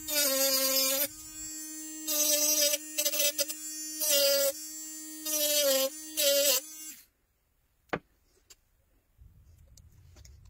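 Small handheld electric tool running with a steady buzzing whine, breaking into louder, harsher buzzing about five times as its pitch dips under load. It switches off about seven seconds in, followed by a single sharp click.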